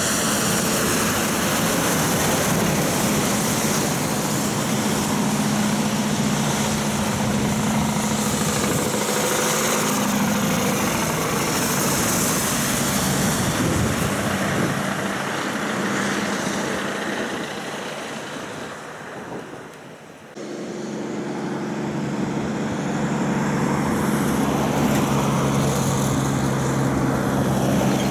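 Heavy diesel trucks on a wet road: a Scania stock truck and trailer passes close with engine and tyre hiss, and the noise fades as it goes away. After a sudden cut about two-thirds of the way in, a Hino stock truck's diesel engine drones steadily as it approaches, getting louder.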